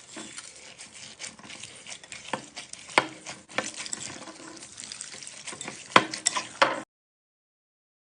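Slime being squished and worked by hand: a continuous sticky crackling with a few sharp pops, one about three seconds in and a cluster of three near the end, before the sound cuts off suddenly.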